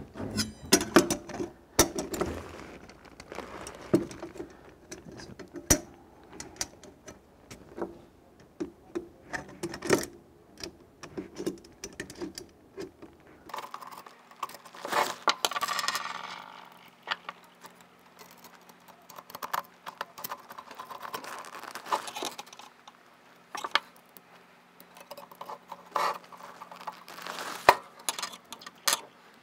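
Irregular clicks, taps and rattles of small metal screws and a screwdriver being handled against a metal softbox speed ring, with a longer scraping rattle about halfway through as a screw is turned in.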